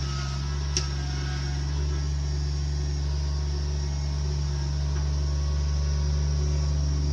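An engine, likely on the land-clearing machinery, running at a steady speed as an unchanging low hum, with one sharp click a little under a second in.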